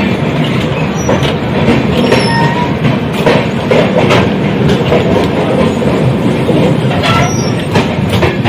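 Passenger train coach rolling through a station, heard loud from an open coach door: a steady rumble of steel wheels on rail with irregular clacks over the rail joints and a few brief, faint wheel squeals.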